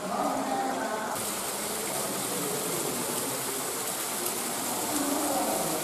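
Steady rush of flowing water; a brighter high hiss joins about a second in and holds.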